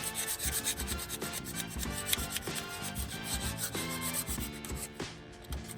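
Continuous scrubbing and scraping on an LS V8 engine block as old gasket glue and gunk are cleaned off its surfaces, with background music playing.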